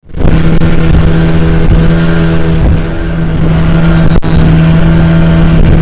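Speedboat engine running hard at speed, a loud steady drone over a heavy rushing noise, with a brief break about four seconds in.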